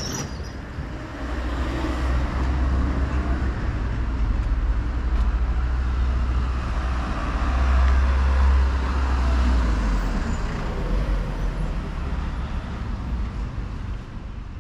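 Road traffic: a motor vehicle passing with a low rumble, growing louder to a peak about eight seconds in and then fading away.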